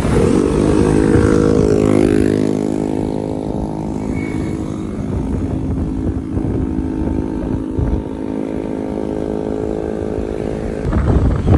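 A motor vehicle engine running steadily. Its pitch eases down a little over the first couple of seconds, then holds level.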